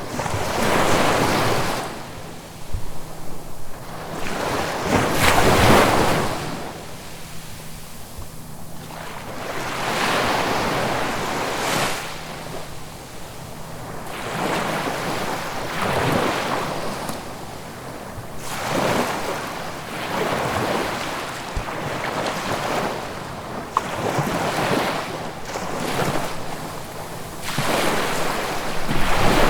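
Ocean waves breaking and washing ashore in repeated surges every three to five seconds, the loudest about five seconds in.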